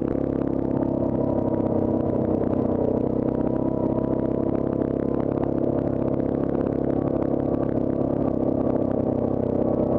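Yamaha Grizzly ATV engine running steadily while the quad is ridden along, with light knocks and rattles from the machine over rough ground.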